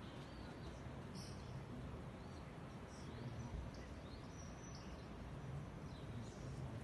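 Small birds chirping: short, high calls scattered through, over a steady low background rumble.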